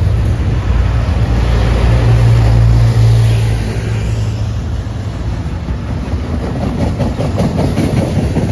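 A diesel-powered train passing close by. The locomotive's engine rumble is loudest about two to three seconds in, then fades to the rolling rattle of the train.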